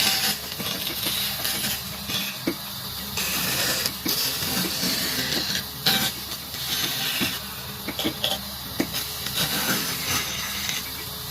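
Wood being worked with a tool: repeated hissing, scraping strokes, each lasting a second or two, with light clicks and a steady low hum underneath.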